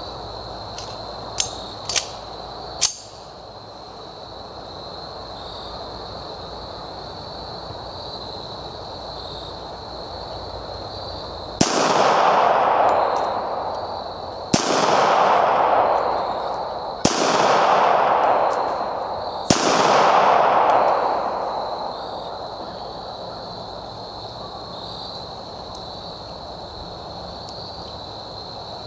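Four pistol shots from a Springfield 1911A1 in .45 ACP, about two and a half seconds apart, each trailing off over about two seconds. A few sharp clicks come two to three seconds in, before the shooting starts.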